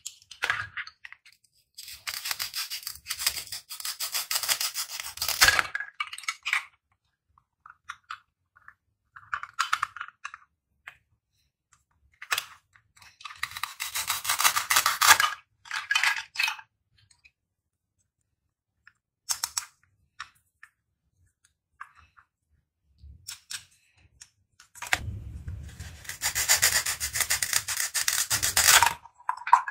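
A plastic toy knife saws through velcro-joined toy fruits and vegetables, and the velcro rips apart in three longer rasping bouts and a few short ones. Light clicks of plastic pieces sound between them.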